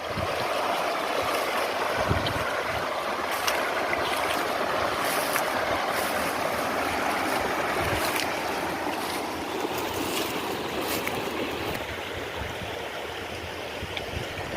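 A river swollen in flood, rushing steadily, easing slightly in the second half.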